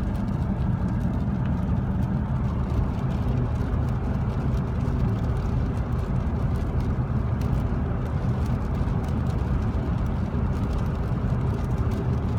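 Steady noise inside a car's cabin at highway speed on a wet road: tyres hissing on the wet pavement over a low engine and road drone.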